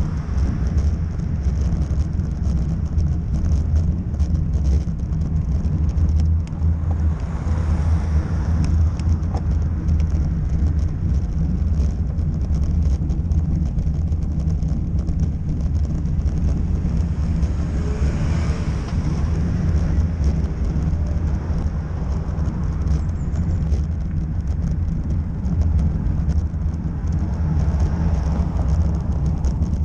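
Steady low rumble of wind and road noise from riding a bike, with three louder swells that rise and fade, about 8, 18 and 28 seconds in.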